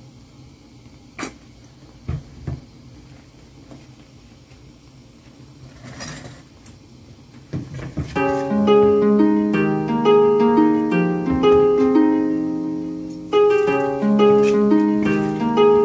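A few sharp clicks over quiet room sound, then from about halfway a light background melody of plucked, harp-like notes takes over.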